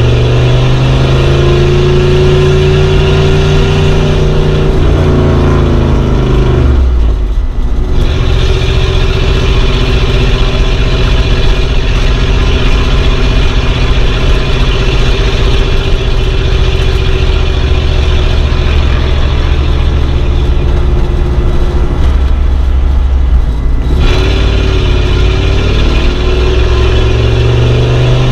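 Old car's engine running under way, its pitch climbing at first, then dropping abruptly about seven seconds in and again near the last few seconds before it climbs once more, as the revs fall and pick up between steady stretches.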